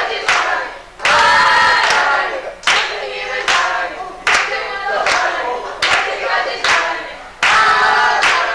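A youth group choir singing a Korean praise song together, with hand claps keeping the beat a little faster than once a second.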